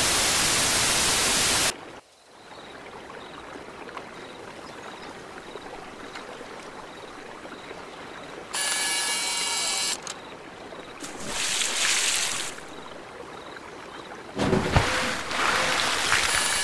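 A loud burst of video static lasting under two seconds, then a steady flowing-water ambience like a river, broken by several more loud bursts of static and rushing noise from about eight seconds in.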